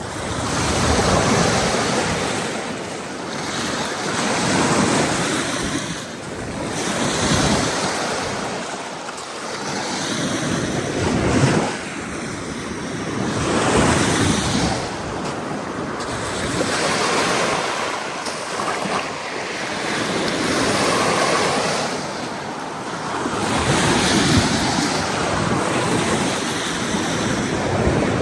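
Surf washing onto a beach, swelling and fading every few seconds, with wind buffeting the microphone.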